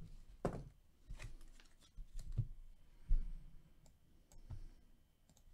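Scattered light clicks and soft knocks, five or six of them, as things are handled on a desk; the loudest comes a little after three seconds in.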